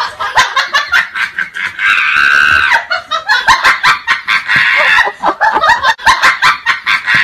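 Loud, rapid bursts of human laughter, going on through the whole stretch with a few longer held high notes.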